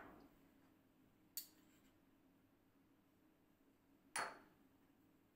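A metal spoon and small ceramic spice bowls clinking twice: a light clink about a second and a half in, and a louder knock with a short ring about four seconds in, near silence between.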